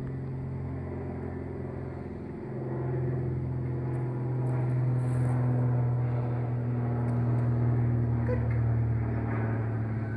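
An engine running steadily with a low hum, growing louder about two and a half seconds in.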